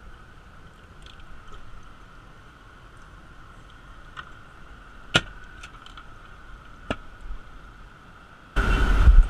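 Boat livewell's aerator pump humming faintly and steadily, with a few sharp clicks and taps from hands working in the bait well. Near the end a sudden loud rushing noise cuts in.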